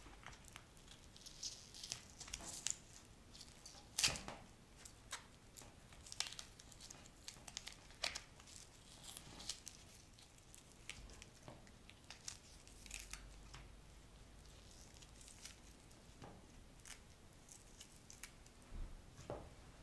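Fleshy plant bulb being pulled apart by hand: scales and papery skin snapping and tearing off in scattered small crackles, the sharpest about four seconds in.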